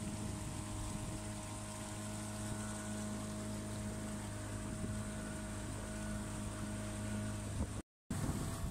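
Boat motor running at a steady, unchanging pitch as the boat cruises. Near the end the sound cuts out for a split second, and rougher, gusty wind noise on the microphone follows.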